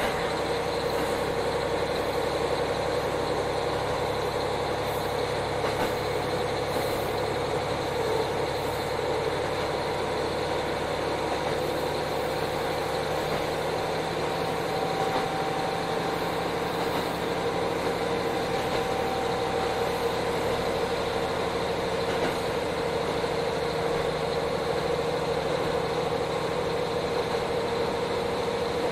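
Diesel engine of a KiHa 40 railcar running steadily, heard from inside the passenger car, with an even hum and a steady whine that stay level throughout.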